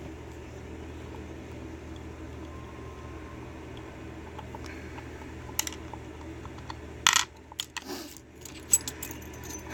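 Small metal lock parts clicking against a wooden tray as a brass pin-tumbler lock cylinder is handled and taken apart. The loudest clack comes about seven seconds in, followed by several lighter clinks, over a steady low hum.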